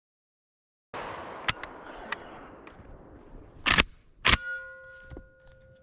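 Two shots from a Black Aces FD12 12-gauge semi-auto bullpup shotgun, about half a second apart, after a second or two of quiet outdoor background. A steady ringing tone hangs on after the second shot.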